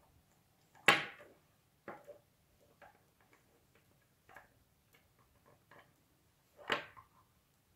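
Nylon paracord strands rustling and sliding against each other and the fingers as a knot is threaded and tightened. Scattered soft clicks and scrapes, with two louder ones about a second in and near the end.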